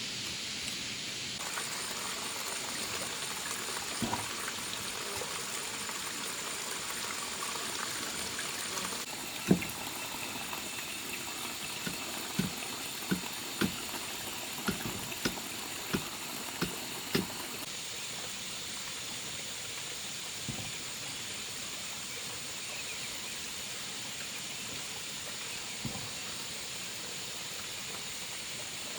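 A steady high hiss, with a run of about nine sharp knocks from about ten seconds in to about seventeen seconds, the first one the loudest.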